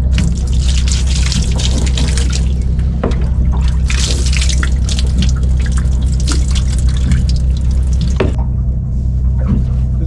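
Water running and splashing, with a crackling spatter that stops abruptly about eight seconds in, over a steady low hum.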